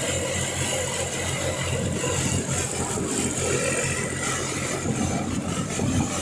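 Fiat 480 tractor's diesel engine running steadily under load, powering a wheat thresher, with the thresher's dense steady noise over the engine's even low pulse as wheat is fed in.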